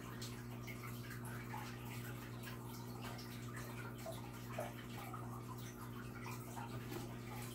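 Quiet room tone: a steady low hum with faint scattered ticks and rustles.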